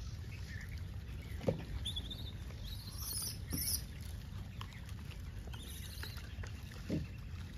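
A steady low rumble with a few brief high squeaks about three seconds in, and two short sounds that fall in pitch, one near the start and one near the end.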